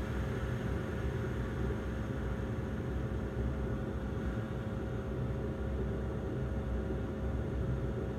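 Steady drone of a Bombardier Dash 8 Q400's Pratt & Whitney PW150A turboprop engines and propellers, heard inside the passenger cabin, with a steady hum running through it.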